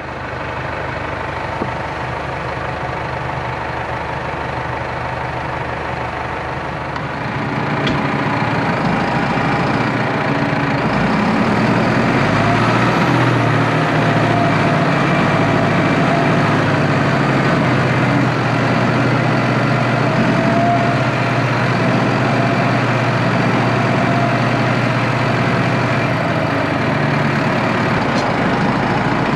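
Farm tractor's diesel engine running steadily, getting louder about seven seconds in and holding at the higher level.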